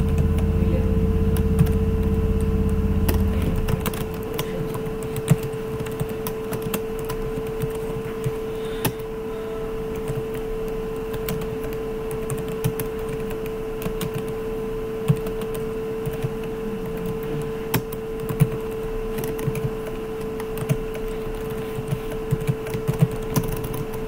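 Typing on a computer keyboard: irregular key clicks, entered in spurts. Under them runs a steady mid-pitched electrical hum, with a low rumble that drops away about four seconds in.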